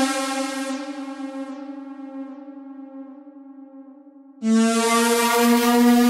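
Wavesequencer Theia software synthesizer playing its BladeSaw2_Lead sawtooth lead preset. A held note fades and grows duller, then a new, slightly lower note comes in bright and loud about four and a half seconds in.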